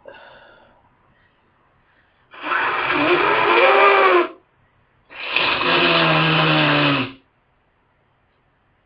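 Two long, loud honking nose blows through a congested nose, each lasting about two seconds, a second apart: the congestion of a heavy head cold.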